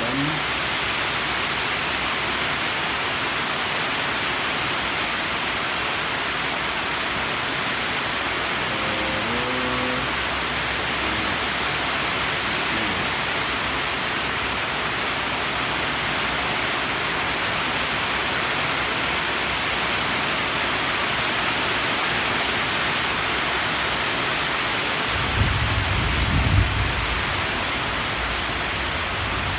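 Steady, even hiss throughout, with a few low bumps near the end.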